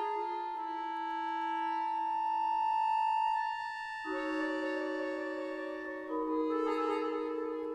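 Accordion holding long, steady reed chords. It moves to a new, fuller chord about four seconds in and again about six seconds in.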